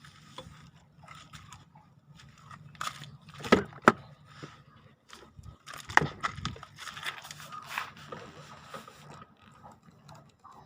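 Ford Mondeo 2.3-litre four-cylinder engine running with a low steady hum, under scattered irregular clicks and scrapes. A few sharp knocks stand out, loudest about three and a half, four and six seconds in. The engine has started knocking, and the owner cannot explain the knock.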